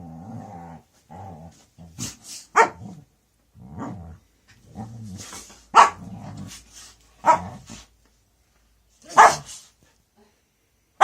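Samoyed dog grumbling with a low growl, then giving about five short, sharp vocal sounds a second or two apart.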